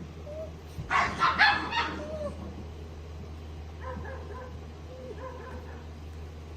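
Puppies yipping and barking in rough play, a quick burst of several yips about a second in, then fainter whines. A steady low hum runs underneath.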